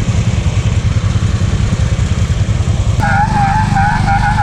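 Small engine running steadily. About three seconds in, the sound changes abruptly and a wavering high whine joins the engine.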